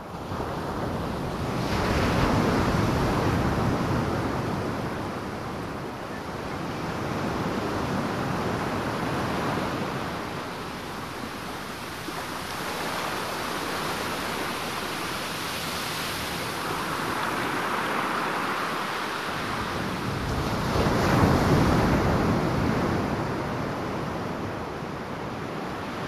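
Ocean surf: waves rolling in and breaking as a steady wash of noise that swells and eases every six or seven seconds, with the biggest surge about three-quarters of the way through.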